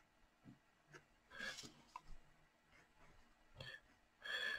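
Faint scratching of an ink pen drawing lines on paper, a few short strokes.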